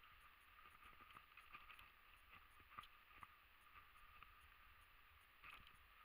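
Near silence with faint, irregular crackling and rustling of dry brambles and twigs underfoot as someone walks through undergrowth.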